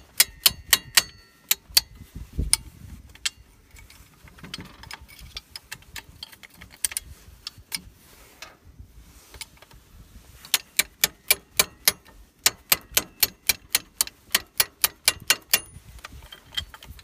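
Ball-peen hammer striking a steel punch to drive the cross pins out of a Hi-Lift jack's climbing mechanism: sharp metal-on-metal taps, a quick run in the first two seconds with the first few ringing briefly, scattered taps in the middle, then a fast steady series of about four or five a second for some five seconds near the end.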